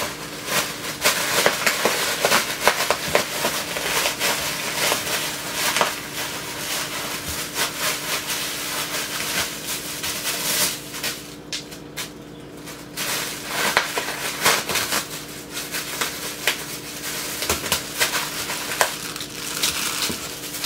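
A dog biting and pawing at bubble wrap: crinkling plastic with many sharp pops and crackles, easing off for a couple of seconds about halfway through.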